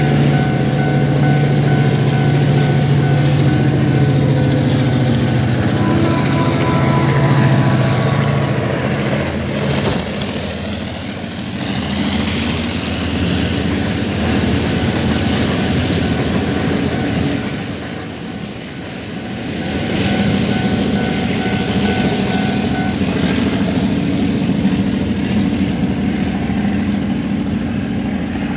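Diesel-electric freight train passing close by: the locomotive's engine hum for the first several seconds, then the freight wagons rolling over the rails with steady wheel noise and a brief high wheel squeal midway. A level-crossing warning bell rings alongside.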